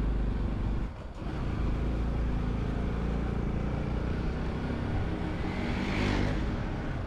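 Motorcycle engine running steadily on the ride uphill, its sound dipping briefly about a second in.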